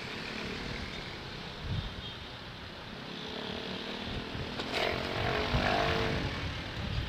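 Motorcycle running along in traffic: a steady engine drone with wind rushing over the microphone. About five seconds in, a louder pitched engine note swells for a second or so and fades.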